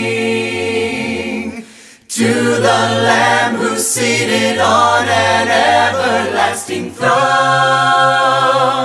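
A small congregation singing a worship chorus unaccompanied, several voices together, pausing briefly for breath between phrases about two seconds in and again near the end.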